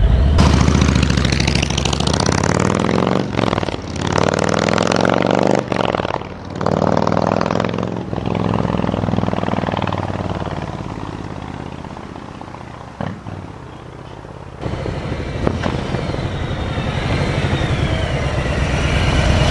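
2019 Harley-Davidson Road King's Milwaukee-Eight V-twin breathing through Vance & Hines true dual headers and 4.5-inch Titan mufflers, accelerating hard from a standing start: the exhaust note climbs in pitch and breaks off several times at the gear changes. It then falls away to a quieter, more distant sound, and grows louder again near the end as the bike comes closer.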